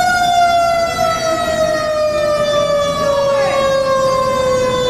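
A siren sounding one long tone that slowly falls in pitch.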